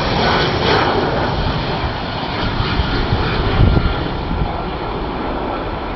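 Airbus A320 airliner passing low on its landing, its jet engines a steady rush of noise with a low rumble underneath.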